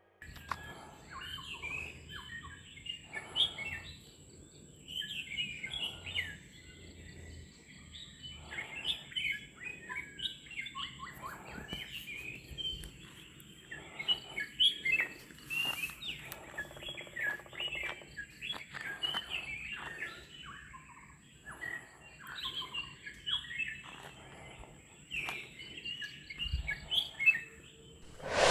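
Several songbirds calling and singing together: a dense run of short, high chirps and warbled phrases, with brief lulls between bouts.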